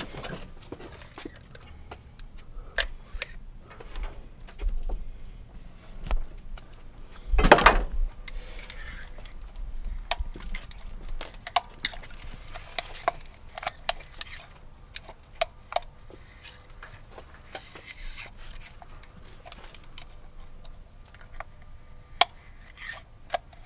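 A thin metal screwdriver clicking and scraping inside the spark plug tube of a Nissan twin-cam valve cover, probing to fish out a rubber plug-wire boot stuck down in the tube. Irregular light metallic clinks throughout, with one louder knock about seven seconds in.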